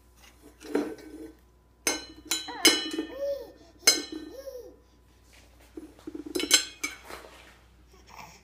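Baby banging on an upturned stainless steel cooking pot: several irregular metallic clangs, each ringing on briefly, with a few short baby vocal sounds in between.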